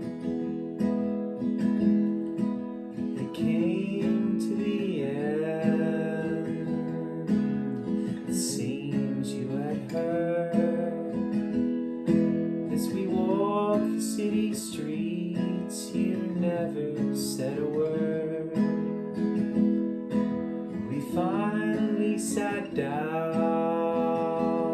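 Martin acoustic guitar strummed steadily, with a voice singing over it in phrases from about three seconds in.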